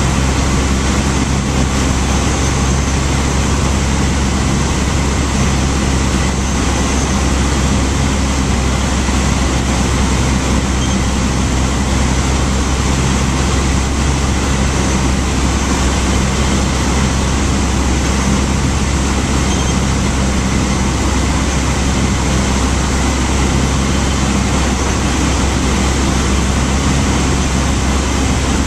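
Cessna 152's four-cylinder Lycoming O-235 engine and propeller running steadily in flight, heard from inside the small cockpit as a loud even drone with a low hum.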